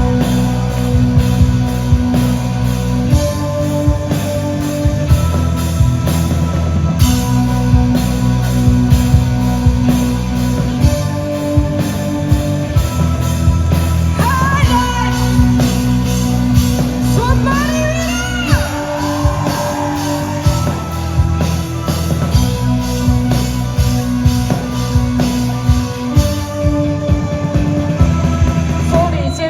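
Rock band playing with a singer: a steady drum beat and bass under a sung vocal line.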